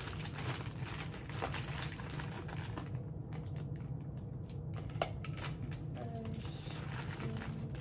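Rustling and crinkling of bags and items being handled while packing, with scattered light clicks, over a steady low hum.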